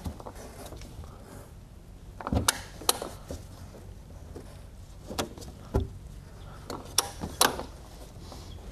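Scattered sharp clicks and knocks, about half a dozen spread out with pauses between, of a preset oil filter torque wrench being worked on a new spin-on aircraft oil filter as it is torqued down.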